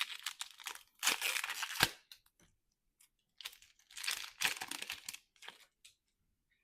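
Foil trading-card pack wrapper being torn open and crinkled by hand, in two crackling bursts: one about a second in, a longer one near the middle.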